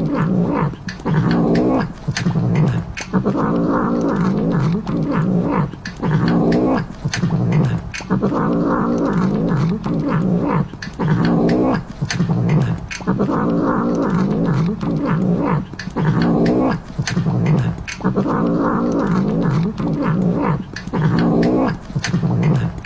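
A cat meowing and yowling over and over in a steady, repeating pattern, about once a second, like a looped cat-meme sound clip.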